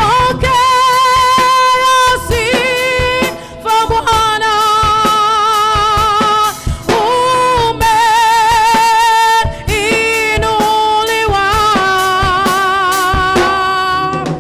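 Music: a worship song, with a voice holding long notes with a wide vibrato over a steady drum beat and backing instruments.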